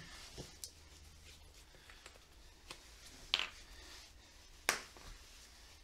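A handful of short, sharp clicks and light taps as small wooden pieces and a glue bottle are handled on a workbench mat, with two louder clicks in the second half.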